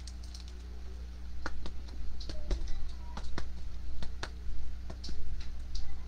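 Light, irregular clicks and taps of a trading card being handled with a plastic card holder, starting about a second and a half in, over a steady low electrical hum.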